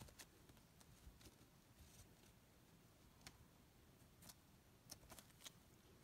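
Near silence broken by scattered faint clicks and ticks, irregularly spaced, from a flame point Siamese kitten scrabbling and pouncing inside a fabric-lined wicker basket.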